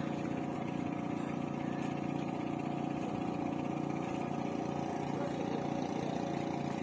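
Motor boat engine running steadily, a constant even drone.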